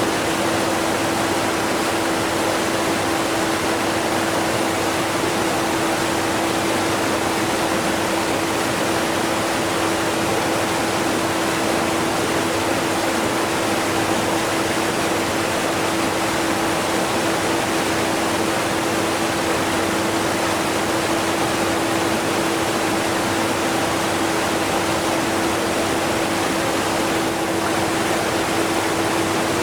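Steady rushing of a strong waterfall mixed with a vacuum cleaner running underneath it, the vacuum barely audible. One steady hum sits under the even rush, with no breaks or changes.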